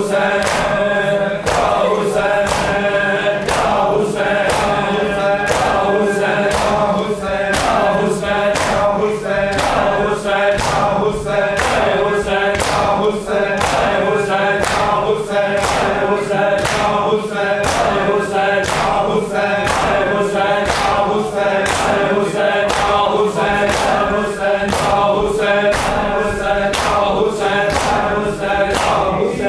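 A group of men chanting a noha (Shia lament) in unison, with the sharp slaps of bare-handed chest-beating (matam) on a steady, even beat.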